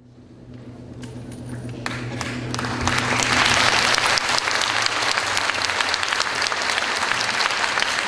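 Concert-hall audience applauding, swelling over the first three seconds into steady, dense clapping.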